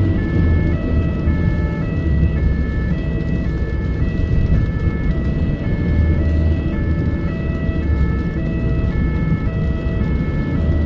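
Ambulance's two-tone siren, switching between a higher and a lower pitch about twice a second, heard from inside the cab over steady engine and road rumble during an emergency run.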